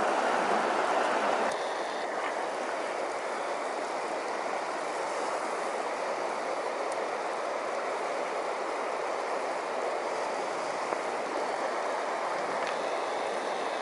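River water rushing steadily, a constant hiss-like flow. It drops a little in level about one and a half seconds in, then runs on evenly.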